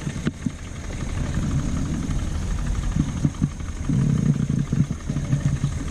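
A boat's motor running steadily at idle, with irregular knocks and clatter on top, heaviest from about three seconds in.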